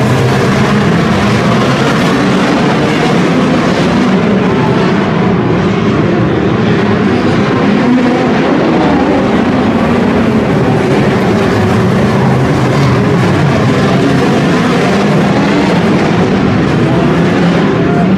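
Engines of a pack of midget race cars running hard around a dirt oval: a loud, continuous racing din whose pitch keeps rising and falling as the cars lap.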